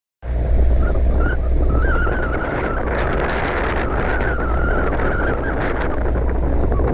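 A pilot boat's engine running steadily with a deep hum, under heavy wind buffeting the microphone. A wavering high whistle sounds over it for most of the first five seconds.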